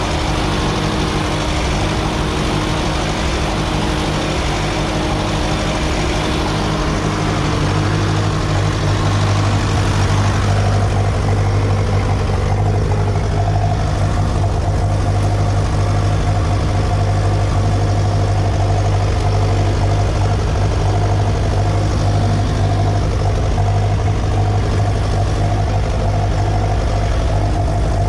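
Tractor engine running steadily with a strong low hum, getting louder about ten seconds in.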